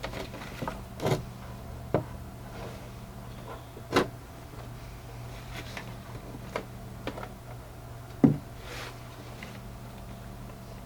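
Scattered sharp clicks and knocks of a stiff plastic taillight wiring connector and its release clip being pried and worked at, the clip hard to free in the cold, over a steady low hum.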